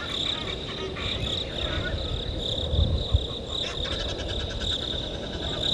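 Steady high-pitched chorus of insects such as crickets at dusk, with faster pulsed chirping joining in the second half and a low rumble swelling about three seconds in.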